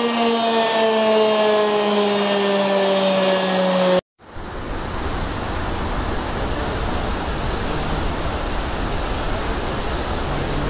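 A siren wailing with its pitch slowly falling, which breaks off abruptly about four seconds in. Then comes the steady loud rush of water pouring through the open gates of the Tarbela Dam spillway.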